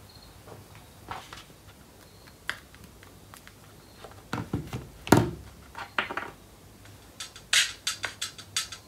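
Scattered clicks and taps of a smartphone and its cables being handled on a wooden table, with a louder knock about five seconds in. Near the end a quick run of sharp, high-pitched ticks begins as music starts coming through the small speaker.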